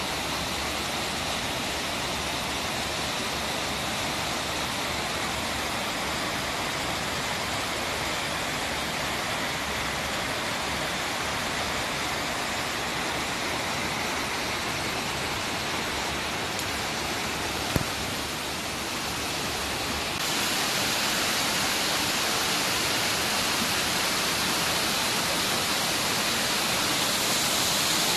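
Water of a small artificial waterfall cascading over a stone wall into a pool: a steady rushing. It grows louder and brighter about twenty seconds in, and a single sharp click comes shortly before that.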